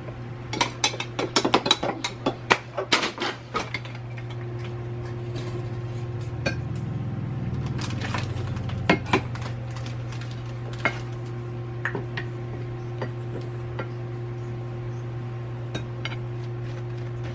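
A metal utensil clinks quickly against a dish as powdered peanut butter is mixed with water, a dense run of clinks for the first few seconds. After that come scattered single taps over a steady low hum.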